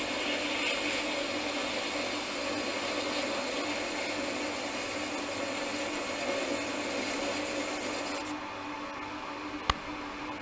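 Small metal lathe running steadily while turning a 60-degree point on a 20 mm silver steel bar, the tool fed in by hand on the compound slide. The higher hiss drops away about eight seconds in, and a single sharp click comes near the end.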